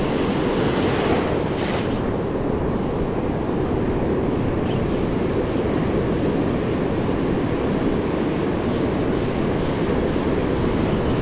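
Ocean surf breaking and washing over the shallows, a steady rushing, with wind buffeting the microphone.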